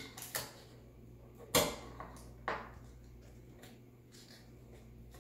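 Paper and sticky tape being handled on a tabletop: a few sharp knocks and crackles. The loudest comes about a second and a half in and another about a second later, over a low steady hum.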